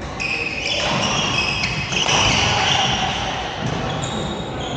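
Badminton play in a sports hall: shoes squeaking on the court floor and the sharp hits of rackets on the shuttlecock, with high squeaks starting and stopping throughout.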